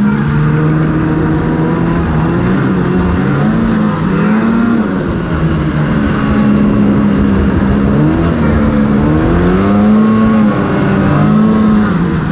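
Snowmobile's Arctic Cat 800 two-stroke engine running on the trail, its pitch rising and falling several times as the throttle is worked.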